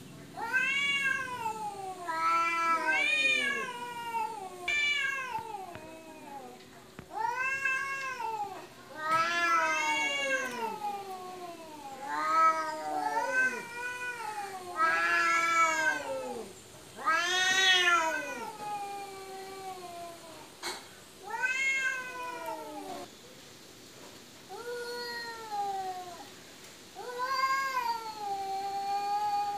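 Domestic cats caterwauling in a fight standoff: a long series of drawn-out yowls, each rising and then falling in pitch, coming one after another with short gaps. The last one is held longer and wavers. These are aggressive threat calls between two rival cats squaring up.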